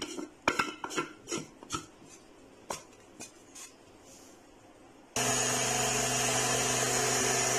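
Plastic clicks and knocks as the grinder jar is handled and set onto its base. About five seconds in, an electric mixer-grinder motor starts suddenly and runs steadily and loudly, grinding semolina.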